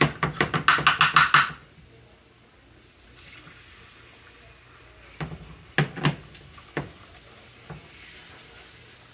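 Rapid scraping strokes of a utensil stirring browned roux in a skillet, then beef broth poured into the hot pan with a faint hiss. A few knocks of the utensil against the pan follow as the broth is stirred in.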